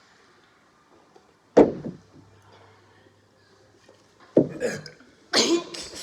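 Sudden throat noises from someone who has just chugged soda: one loud, abrupt outburst about one and a half seconds in, then two more, breathier ones near the end.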